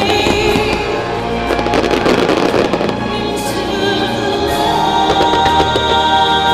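Starmine fireworks barrage: rapid shell bursts and crackling, densest in the first half, over loud music with sustained tones.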